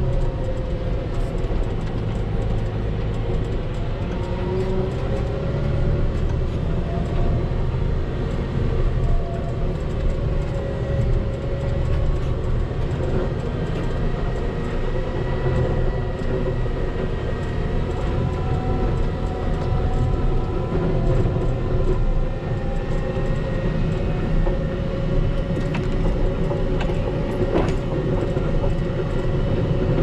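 Volvo L60H wheel loader's diesel engine running steadily under load while its front V-plow pushes through deep snow drifts, with the rush of snow being shoved aside. A faint whine runs over the drone and wavers slowly in pitch.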